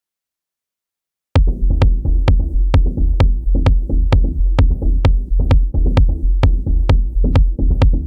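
Electronic beat programmed on a Native Instruments Maschine groovebox: after about a second of silence it starts abruptly, with a deep steady bass and sharp percussion hits about twice a second.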